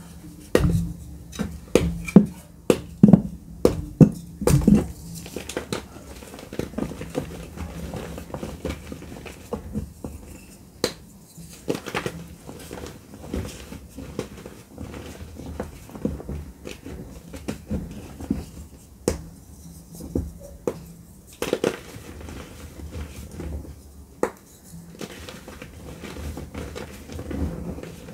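Dry blue-tinted gym chalk being crushed and crumbled by hand in a tray of chalk powder: irregular dry crunches and soft crumbling, loudest and most frequent in the first five seconds.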